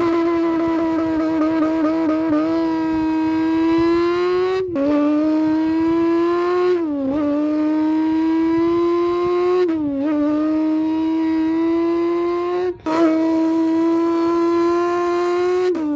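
A person imitating a V10 supercar engine with his mouth, accelerating through the gears: a sustained buzzing engine note that climbs slowly in pitch, then drops sharply at each upshift, about five times.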